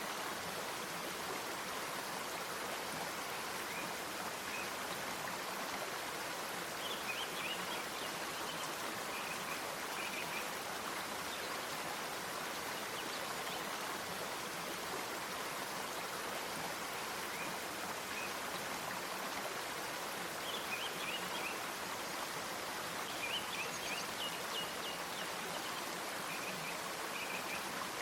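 Nature soundscape of steadily running stream water, with short clusters of high bird chirps now and then.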